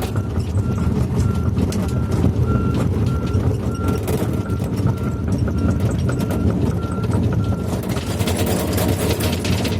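Heavy diesel engine of a Volvo 210 excavator running steadily, with a travel/backing alarm beeping about twice a second. The beeping stops near the end as a clattering, grinding noise rises.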